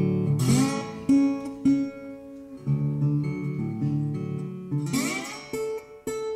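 Background acoustic guitar music: held chords with a strum about half a second in and another near the end.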